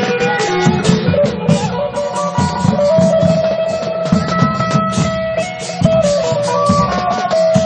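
Isan long-drum band playing: a double-necked electric phin carries a plucked melody through a loudspeaker over steady long-drum beats and quick, bright cymbal strokes.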